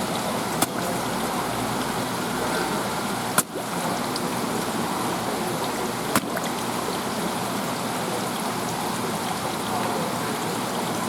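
Barred knifejaw (ishidai) crunching a sea urchin at the water's surface: three sharp cracks, a few seconds apart, over the steady sound of sloshing water.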